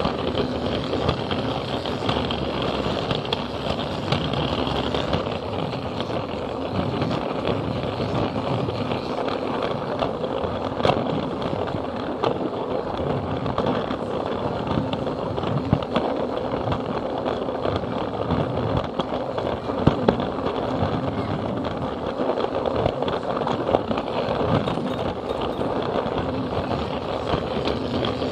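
Plarail battery-powered toy train running on plastic track, heard from the camera car riding on it: a steady motor hum with a continuous rattle and small clicks of the wheels over the track.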